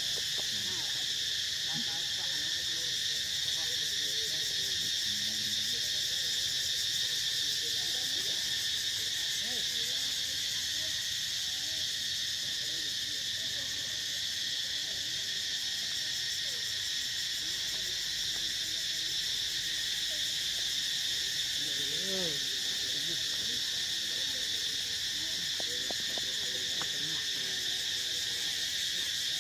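Steady, dense forest insect chorus, a continuous high drone in several pitches, with faint, short, wavering low calls beneath it.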